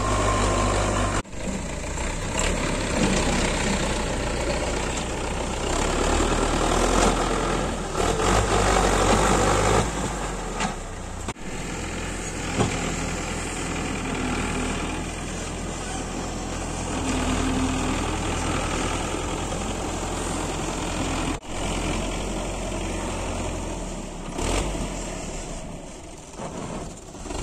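Belarus 510 tractor's diesel engine running steadily under load while hauling a trolley heaped with soil. It gets louder for a few seconds about a third of the way in, and it breaks off briefly three times.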